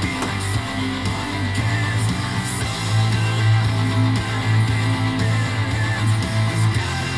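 Background music led by strummed guitar over a steady low bass line.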